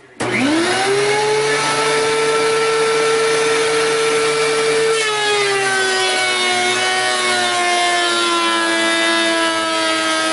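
DeWalt benchtop thickness planer switched on, its motor whining up to speed within about a second and then running steadily. About five seconds in a board feeds through and the pitch drops a little under the cutting load, with the chips blown out through a metal pipe into a trash-can chip collector.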